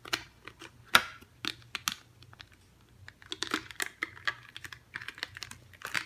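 Clear plastic clamshell tray for a CPU clicking and crackling as it is handled and pressed shut around the processor. A few sharp separate taps in the first two seconds are followed by a busier run of plastic clicks and crinkles.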